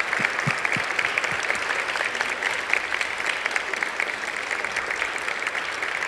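Audience applauding, a dense, steady clapping of many hands.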